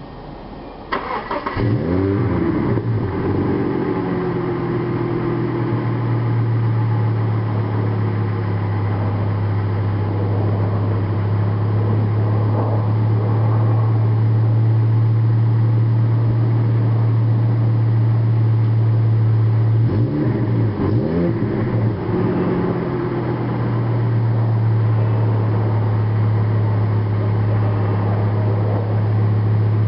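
1997 Volvo V70 2.5 144 hp inline five-cylinder engine heard at the tailpipe on a cold start. It cranks briefly and catches about a second in, with its speed flaring up and settling, then idles steadily. Around twenty seconds in the engine speed briefly rises and falls again before it settles back to idle.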